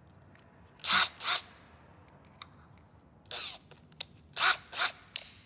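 Makita cordless hammer drill's keyless chuck being loosened and tightened by hand while changing bits: six short ratcheting bursts, a pair about a second in, then four more close together near the end.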